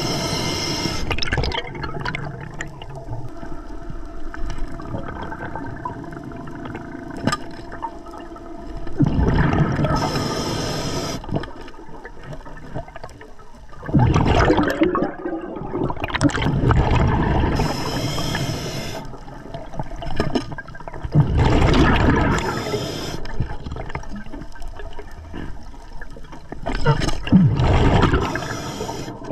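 A scuba diver breathing underwater through an Atomic regulator: sharp hissing inhalations alternate with gurgling bursts of exhaled bubbles, a breath every several seconds.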